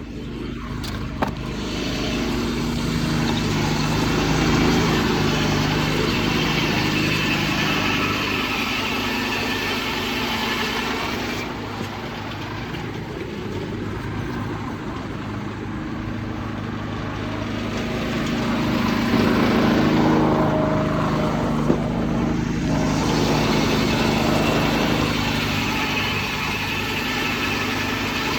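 Sawmill driven by a Detroit 6-71 two-stroke inline-six diesel, running steadily with a hissing cutting noise on top that grows louder twice, muffled from inside an overall pocket.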